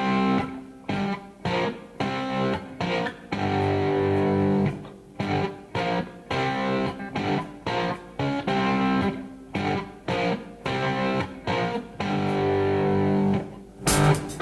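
Background music led by a plucked guitar, with chords struck in a regular rhythm.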